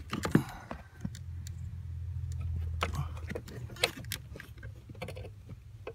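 Scattered light clicks and knocks of hands handling metal parts around the clutch pedal under the dashboard, with a low steady rumble for a couple of seconds in the middle.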